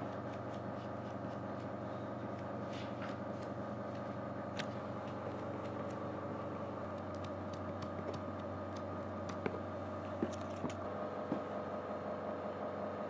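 Steady motor hum with a few fixed tones, with scattered light clicks and taps over it that come more often in the second half.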